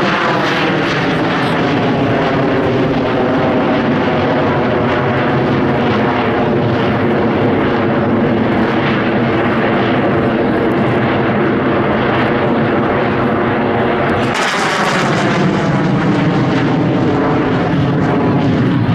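Jet noise from the August 1st team's J-10 fighters flying their display. Near the start the engine pitch falls as a jet passes, then the noise holds steady. About fourteen seconds in, a louder, brighter rush comes in as another jet passes close.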